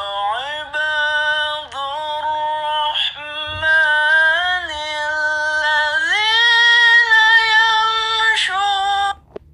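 A solo voice chanting a melodic Islamic recitation, tilawah style, in long held phrases that slide between pitches, with a short break for breath about three seconds in. This is the dry recording, before any echo effect has been added, and it stops just before the end.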